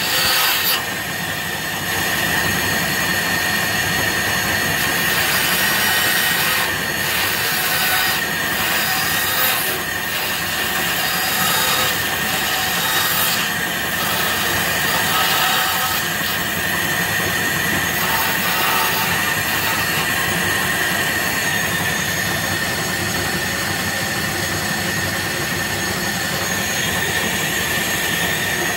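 Bandsaw running and cutting through wood as a strip is fed into the blade, with a steady high-pitched whine over the rasp of the cut.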